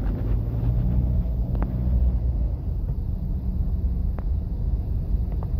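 Steady low rumble of engine and road noise heard inside a car's cabin while driving slowly in traffic, with a few faint ticks.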